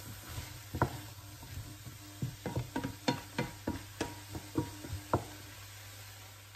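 A wooden spatula stirs chopped vegetables in a non-stick frying pan over a steady sizzle. About a dozen sharp clacks and scrapes of the spatula against the pan fall between about one and five seconds in, under a low steady hum.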